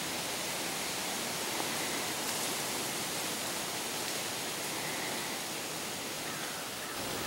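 Steady wind rushing through the forest trees, an even hiss of moving leaves with no pauses.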